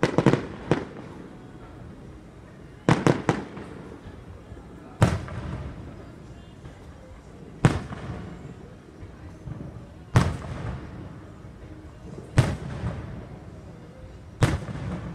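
Aerial firework shells bursting: a quick cluster of bangs at the start and another about three seconds in, then single sharp booms every two to two and a half seconds, each trailing off in a rumble.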